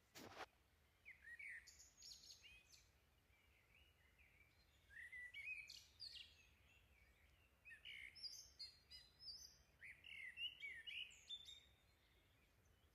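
Faint, scattered bird chirps and short calls over near silence, coming more often in the second half.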